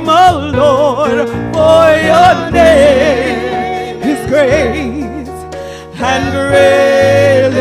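A woman singing a gospel praise song with an instrumental backing: wordless, ornamented runs with a wavering vibrato, ending on a long held note near the end.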